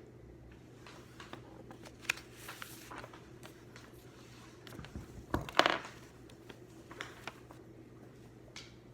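Desk sounds of studying: scattered light taps and brief paper-like rustles over a low steady room hum, with the loudest cluster of rustling and knocks about five and a half seconds in.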